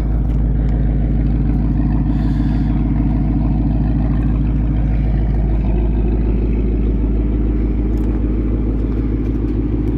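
Roush Mustang's V8 engine idling steadily, with no revving or change in pitch.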